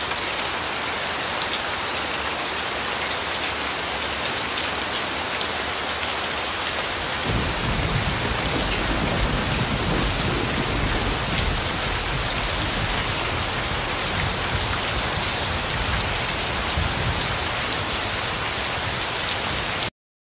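Steady rain falling, an even hiss of drops on hard surfaces, with a low rumble of thunder coming in about seven seconds in and rolling on underneath. The sound cuts off suddenly just before the end.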